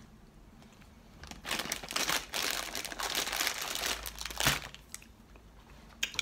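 Plastic lolly packet rustling and crinkling for about three seconds, ending with a sharper crackle.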